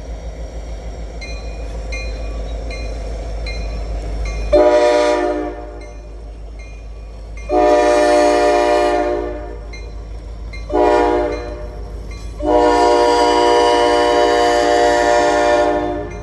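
Train horn on the approaching ELS 503 locomotive sounding four blasts: short, long, short, then the longest. A steady low rumble is heard before the horn starts.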